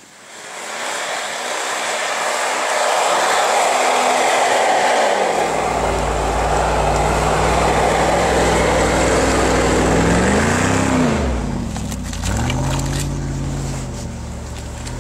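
Mercedes-Benz G500 off-roader driving through deep snow: a loud rushing noise as it churns the snow, with the engine running under load. The revs rise and fall twice near the end as it passes.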